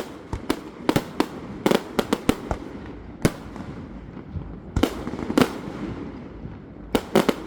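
Fireworks display: a rapid irregular run of sharp shell bangs and reports, several close together in clusters, over a continuous rumble.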